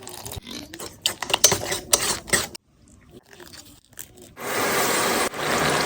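Kitchen food-preparation sounds: scraping and crackling handling noises, then a steady loud hiss lasting about a second and a half near the end.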